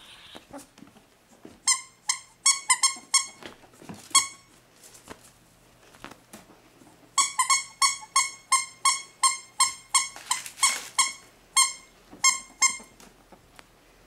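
A squeaky toy squeaked over and over in short, same-pitched squeaks, a few a second, in two runs: a short one about two seconds in and a longer one from about seven seconds to near the end.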